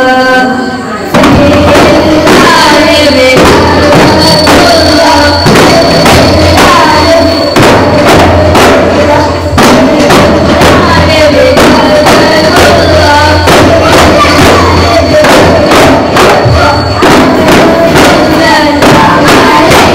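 Daff muttu: a group beating daffs (hand-held frame drums) in a steady rhythm while singing together in chorus. The drumming and singing come in strongly about a second in.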